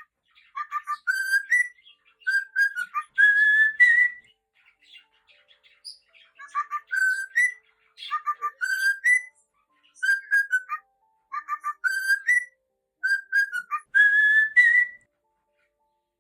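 Cockatiel whistling its song: a short tune of clear whistled notes, many ending in an upward slide, repeated over and over with a brief lull of soft chirps about five seconds in.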